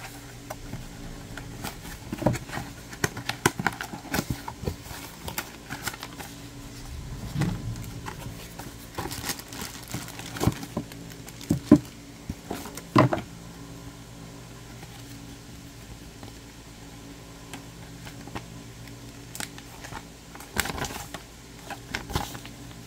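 Cardboard product box being handled and opened by hand: irregular taps, knocks and scrapes of the flaps and carton, with a sharp knock near the middle, and paper rustling as the instruction manual is drawn out near the end. A steady low hum runs underneath.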